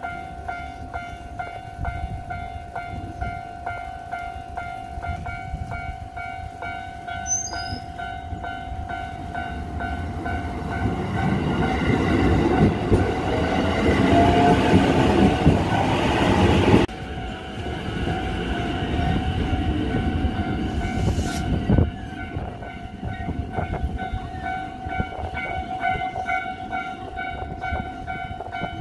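Japanese level-crossing warning bell ringing steadily while an electric commuter train passes. The train's rumble builds to its loudest around the middle, drops away suddenly a little past halfway, and a lighter rumble carries on until it stops about three-quarters of the way through.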